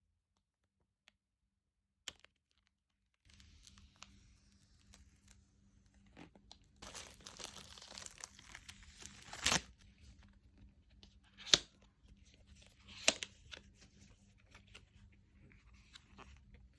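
Watch box packaging being opened by hand: after a few quiet seconds, rustling, then a longer tearing stretch as a paper strip is pulled off, and three sharp snaps or clicks of the box parts.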